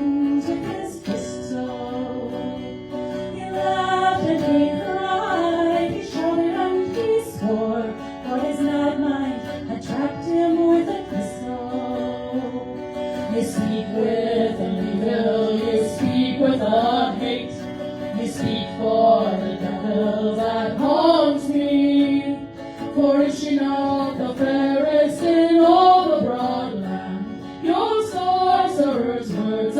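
Live acoustic folk music: a plucked guitar under a flowing melody line.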